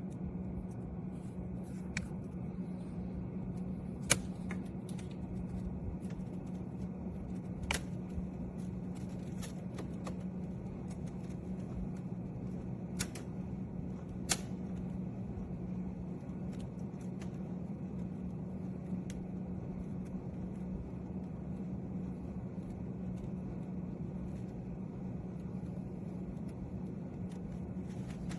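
A steady low hum, with a few sharp clicks and light handling taps scattered through it; the loudest click comes about four seconds in.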